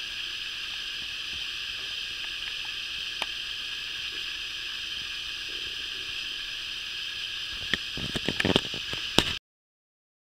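Steady hiss of background noise, then a quick run of sharp crackling clicks and knocks near the end, after which the sound cuts off abruptly.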